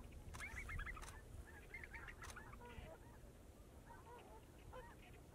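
A flock of snow geese calling: many faint, overlapping honks, thickest in the first two seconds and thinning after, over a low rumble.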